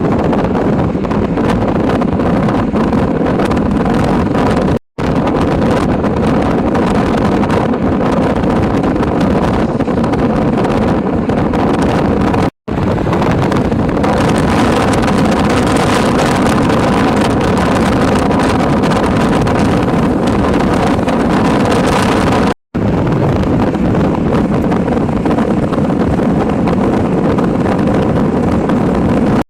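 Loud, steady wind buffeting the microphone of a moving car, mixed with the car's road and engine noise. It cuts out for an instant three times.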